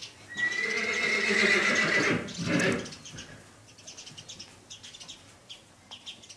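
An equine whinny, one loud call of about two and a half seconds starting a moment in, ending in a lower second part. Faint bird chirps around it.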